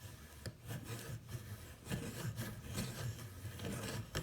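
Hand-held roll crimper being twisted by hand on the mouth of a .410 shotshell hull: repeated rubbing and scraping strokes as it rolls the crimp over the overshot card.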